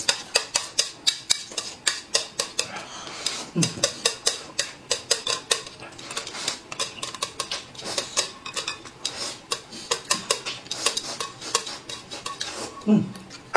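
Chopsticks clicking and scraping against a plate and bowl in quick, rapid strokes as noodles are shovelled in and eaten.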